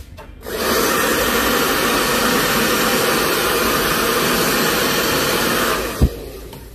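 A small electric air blower runs with a steady, loud rush of air for about five seconds, then switches off. A single sharp knock follows just after.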